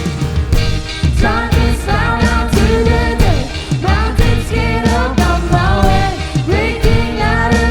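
Christian worship music played by a band with drums, and a sung melody coming in about a second in.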